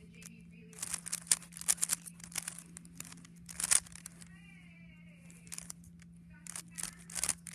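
Rubik's cube layers being turned by hand: quick irregular runs of plastic clicks and scrapes as the faces are twisted.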